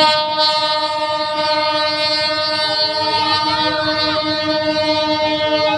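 Passenger train's horn sounded in one long, steady blast, starting abruptly and cutting off near the end.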